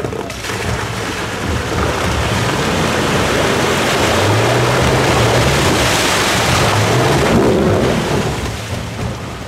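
An off-road 4x4's engine revving under load while its tyres churn through icy slush and water. The noise swells to a peak about halfway through and then eases off, with the engine pitch wavering as the throttle changes.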